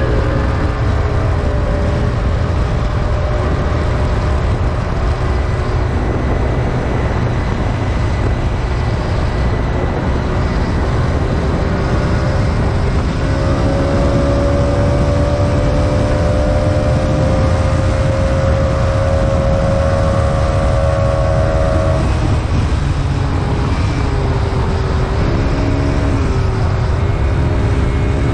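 PGO Tigra 150 scooter's engine running at road speed, with heavy wind buffeting on the microphone. About halfway through, the engine note climbs slowly for several seconds as the scooter gathers speed, then drops, and near the end it wavers up and down.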